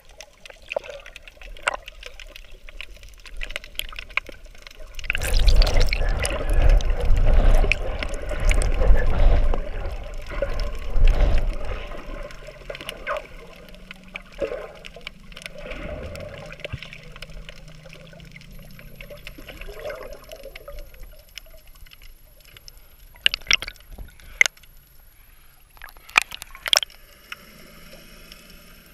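Water moving over a handheld GoPro underwater as the swimmer strokes. It is loudest from about five to twelve seconds in, then quieter, with a few sharp clicks near the end.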